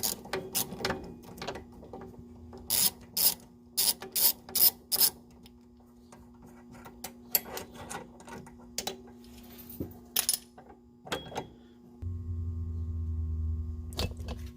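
Hand tools working the nuts of a car's sway bar link with a 12mm socket and wrench: a run of sharp metallic clicks of a socket ratchet over the first five seconds, then scattered clinks, with a low steady hum coming in near the end.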